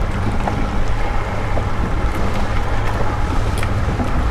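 Outboard motor running steadily at trolling speed, with water rushing past the hull and wind buffeting the microphone.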